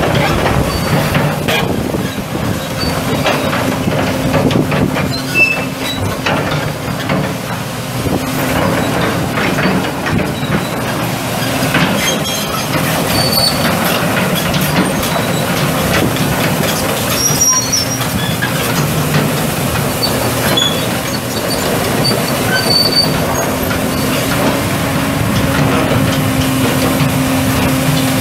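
Hitachi EX270LC excavator on the move: its Cummins 5.9L inline-six turbo diesel runs steadily under load, while the steel triple-grouser track pads clank and squeak over the undercarriage.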